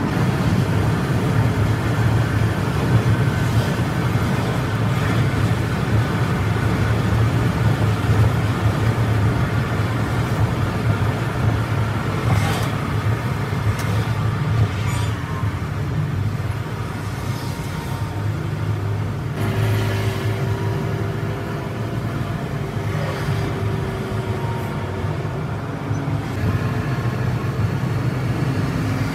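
Scania multi-axle coach's engine and tyre noise, a steady low drone heard from inside the driver's cabin while cruising at highway speed, easing slightly about two-thirds of the way through.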